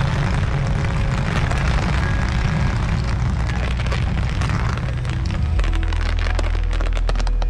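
Fireworks going off over music: a dense hiss of crackling stars with bangs, breaking into a rapid run of sharp pops near the end.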